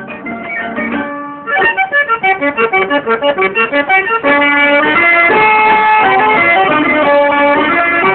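Accordion-led instrumental introduction to a 1950s Hindi film song. It opens softly and swells, then plays quick detached chords about five a second, and from about four seconds in it moves to held chords.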